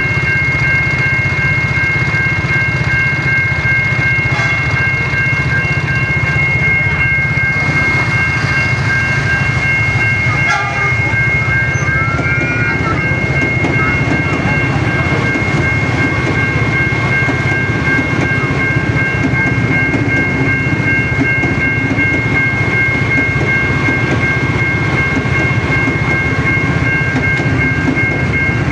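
A train passing over a railway level crossing, a loud, steady rumble with wheel clatter. Over it sounds the crossing's continuous high-pitched warning alarm, from its Siemens crossing equipment.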